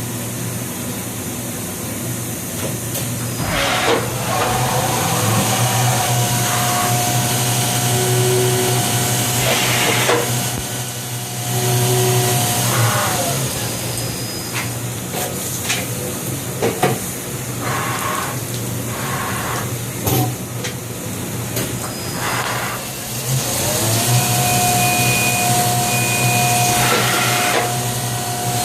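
Fadal 4020 CNC vertical mill running through machine movements: a steady low hum with a motor whine that rises, holds for several seconds and drops away, twice, and occasional short clunks.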